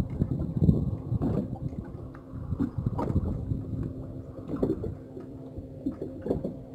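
Wind on the microphone and water slapping a small boat, with irregular knocks every second or two and a faint steady hum underneath.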